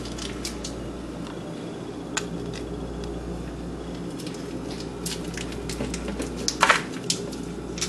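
Hands unwrapping foil-wrapped Maggi stock cubes and crumbling them over seasoned fish: scattered small crinkles and clicks, a sharper one about six and a half seconds in, over a steady low hum.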